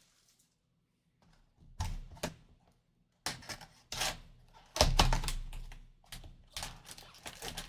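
Hands opening a cardboard trading-card hobby box and taking out its foil packs. From about two seconds in there is an irregular run of taps, knocks and rustles, busier in the second half.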